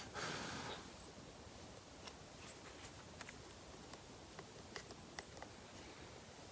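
Faint handling noises of a wooden arrow shaft and fur tracer strip being worked by hand: a brief rustle at the start, then scattered light clicks and scratches.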